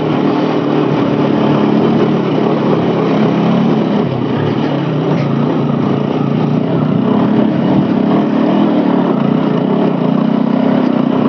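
TVS Apache 200's single-cylinder engine running at a steady, light throttle as the motorcycle climbs a rough dirt trail.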